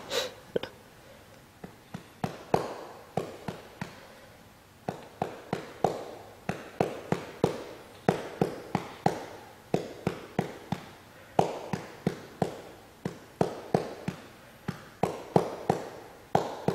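A hand patting a baby's back to bring up a burp: a run of soft pats, about two to three a second. The pats thin out for a few seconds near the start, then keep a steady rhythm.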